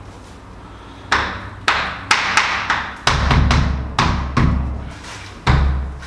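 About ten irregular thumps and taps of hands striking a wooden wall panel to press it into place, starting about a second in, each with a short echo off the bare walls.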